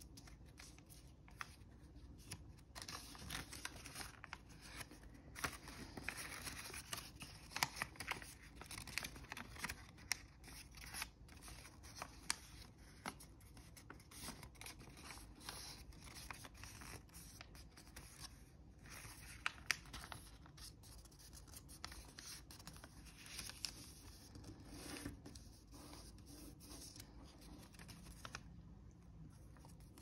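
A sheet of origami paper being folded and creased by hand: continuous faint rustling and crinkling, broken by many small sharp crackles and clicks as the folds are pressed and the paper is turned.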